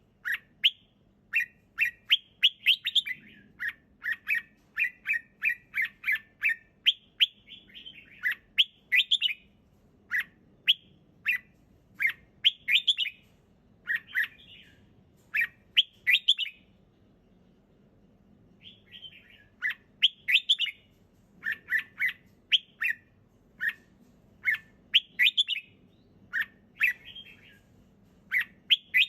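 Red-whiskered bulbul singing: short, clear whistled phrases of a few quick notes, repeated about every second, with a pause of a couple of seconds a little past halfway.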